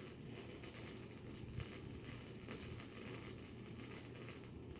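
Steady background hiss with a low electrical hum from the microphone's amplifier setup, the distortion noise it is adding to the recording, with a single faint tap about one and a half seconds in.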